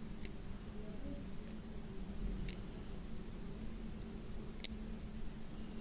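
Small snips clicking shut three times, about two seconds apart, as they trim the silica wick ends on a rebuilt clearomizer coil head.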